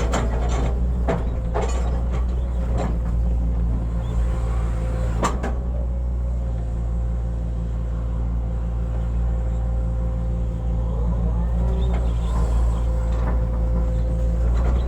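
Hitachi excavator's diesel engine running steadily under work, with a faint steady whine above it. Several sharp clanks come in the first few seconds, the last and loudest about five seconds in.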